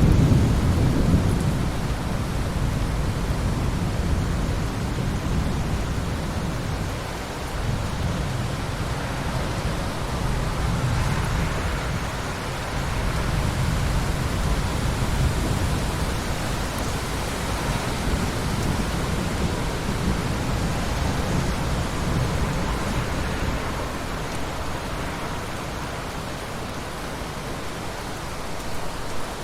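Steady heavy rain in a forest, an even hiss over a deep low rumble. The rumble is strongest at the start and eases off toward the end.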